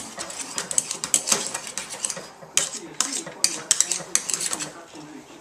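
A metal utensil clattering and scraping rapidly against a pot of boiled potatoes, stopping about four and a half seconds in.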